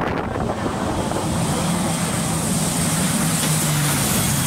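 C-2A Greyhound's twin turboprop engines running as it lands on the carrier deck and takes the arresting wire: a steady propeller drone with a high turbine whine above it.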